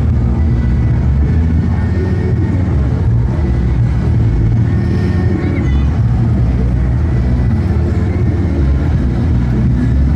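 Loud, steady low engine rumble from a larger boat passing through the canal.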